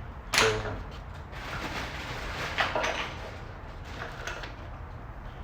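Rustling and handling of packaging and small plastic parts being sorted through, with a few light knocks, and a short vocal sound just after the start.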